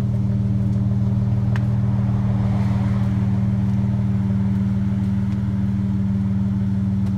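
Chrysler 300 idling steadily through aftermarket Flowmaster Super 10 series mufflers, a deep even exhaust drone while it warms up after a cold start.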